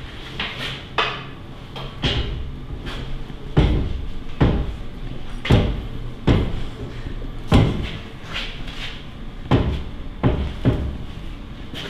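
Irregular knocks and clunks, about a dozen in all, as an engine hanging from a shop crane is worked down into the engine bay.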